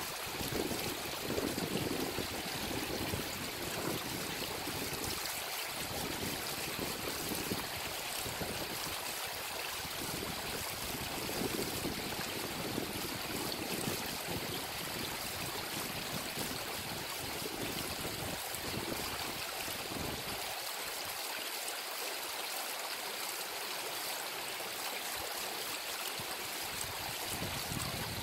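Steady rushing of a mountain stream, with a gusty low rumble of wind on the microphone that drops away about twenty seconds in.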